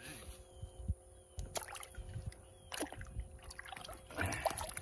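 Water splashing and dripping in an ice-fishing hole as a hooked bass is reeled up and lifted out, among scattered clicks and rustles from the spinning reel and handling. The splashing is loudest about four seconds in.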